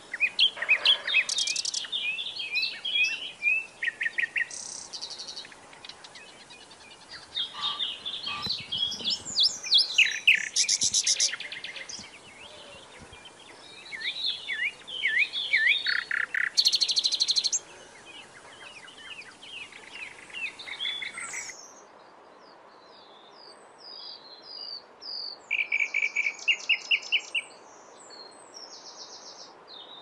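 Common nightingale singing: loud, varied phrases of whistles, chirps and rapid stuttering trills, separated by short pauses. About two-thirds of the way through the sound cuts to sparser, softer bird song with a run of quick repeated notes.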